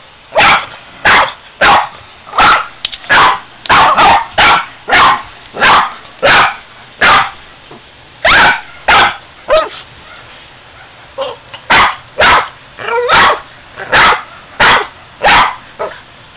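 Boston terrier barking repeatedly at a ceramic piggy bank, about a bark and a half a second, with a short break about ten seconds in, a few softer yips, then steady barking again.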